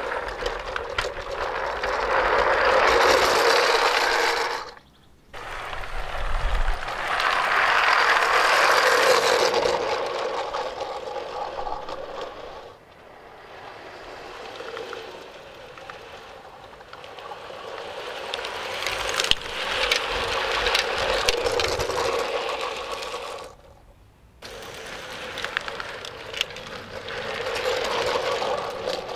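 G-scale Bachmann Climax model locomotive whirring from its electric motor and gearing, with its wheels clicking over the track as it hauls a loaded train. The sound swells and fades several times as the train passes close, and breaks off abruptly twice.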